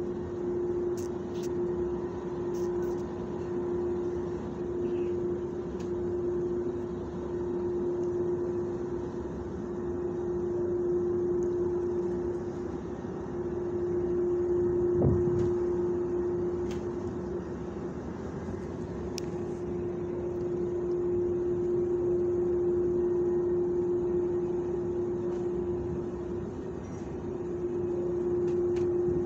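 Steady mechanical hum: one constant droning tone over a low rumble, with a single thump about halfway through.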